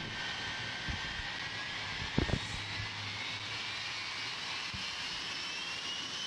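The three jet engines of the Shockwave jet truck running, a steady rushing whine whose pitch rises slowly throughout. Two short thumps come about one and two seconds in.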